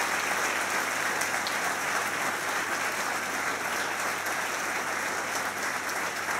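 Large audience applauding, a steady dense clapping that holds evenly throughout.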